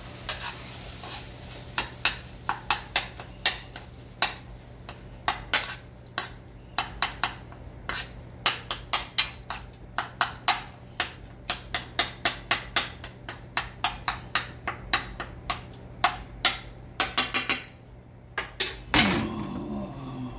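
A utensil repeatedly knocking and scraping against a frying skillet, many sharp taps at an uneven pace. Near the end comes a heavier clatter as the skillet is set back down on the stovetop.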